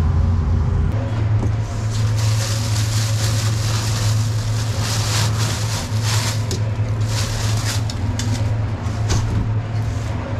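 Sausages sizzling in a deep fryer's hot oil, a crackling hiss that builds about two seconds in, over a steady low hum from kitchen equipment.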